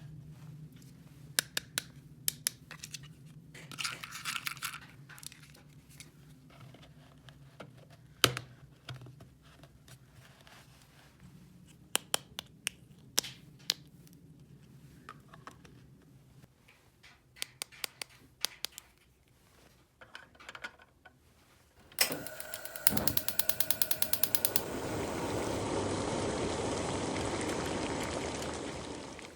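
Small plastic toy pieces clicking and knocking as they are handled. Near the end comes a quick run of rapid clicks, then a steady rush of water running from a toy tap.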